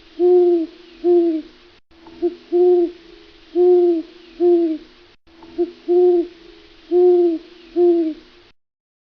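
Owl hooting: a phrase of low, arched hoots repeated three times, cutting off abruptly about eight and a half seconds in.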